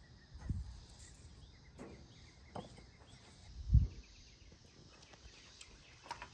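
Crema being stirred with a wooden spoon and a fork in a stainless steel bowl: a few soft knocks, with one dull, louder knock about two-thirds of the way through. Faint insect chirping in the background.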